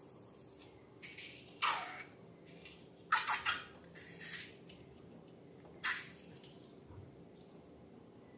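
Wet, sticky squelches of slime being worked by hand or stirred: about half a dozen short squishes, some in quick runs, with brief gaps between them.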